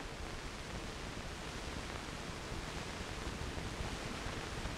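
Steady hiss with a low rumble: the background noise of an old film soundtrack, with no other sound.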